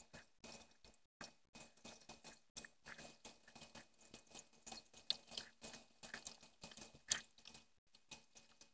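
Cornflour-coated chicken pieces frying in hot oil in a frying pan: a dense, irregular crackling and spitting as more pieces go into the oil.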